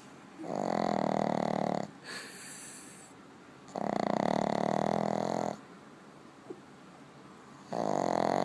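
A sleeping dog snoring: three long snores about four seconds apart, each lasting a second and a half or more, with quiet breathing between them. The last snore is still going at the end.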